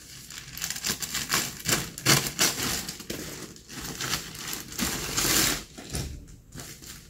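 Scissors snipping through a plastic courier mailer, followed by crinkling and rustling of the plastic packaging as the pouch is opened and the wrapped item pulled out, loudest a little after five seconds in.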